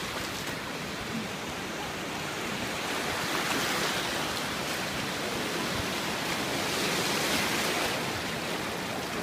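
Ocean surf washing through shallow water: a steady rush that swells a little twice.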